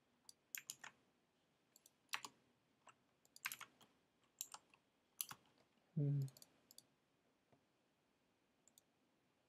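Faint, irregular computer keyboard keystrokes, single taps and short runs of two or three, as code is typed and edited. About six seconds in there is a brief hummed 'mm' from a voice.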